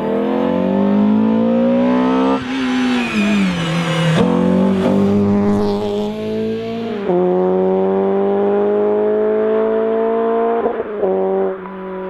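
Peugeot 306 GTI-6 (S16) 2.0-litre 16-valve four-cylinder engine accelerating hard as the car drives past. The engine note climbs steadily in pitch and drops back sharply at each upshift, several times over.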